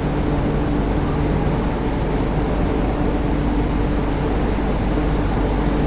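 Steady hum inside the cabin of a CRRC Qingdao Sifang Q Train EMU standing still, with the even drone of its ventilation and auxiliary equipment and two constant low tones, no traction-motor whine.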